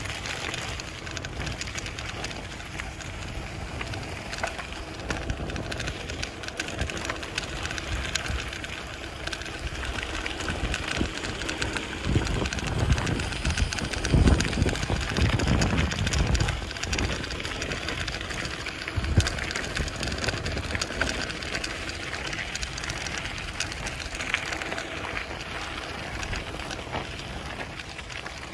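Wind rushing over the microphone of a moving bicycle, over a steady road-noise hiss, with a louder low rumble for a few seconds around the middle.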